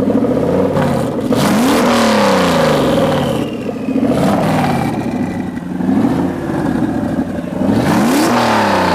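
Turbocharged Infiniti VH45 V8 being revved in repeated blips, its pitch climbing and falling about four times. A high turbo whistle falls away after the revs.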